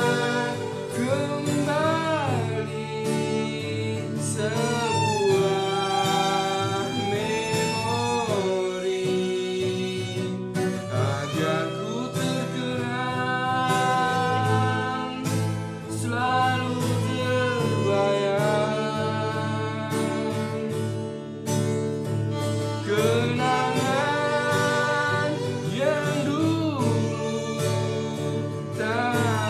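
A song: a wavering sung melody over guitar and bowed strings, playing steadily.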